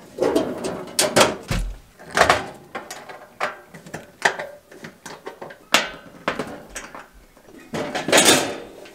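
Steel breaker-panel cover being handled: scattered metal clicks and knocks as its screws are taken out, then a longer scrape near the end as the sheet-metal cover is moved.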